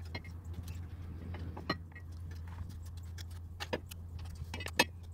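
Scattered sharp metallic clinks and knocks of tools and steel suspension parts as a new rear trailing arm is worked into place in the subframe, over a steady low hum.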